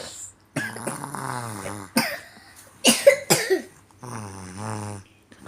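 A man snoring: two long, drawn-out snores, broken in the middle by sudden loud snorts.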